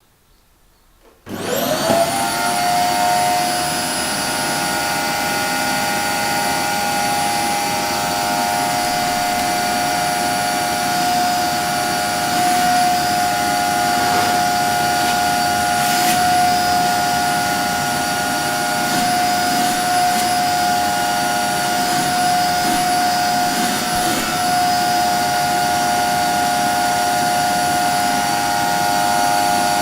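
Vacuum cleaner switched on about a second in. Its motor whine rises quickly in pitch as it spins up, then it runs steadily with a high whine over a rushing air noise.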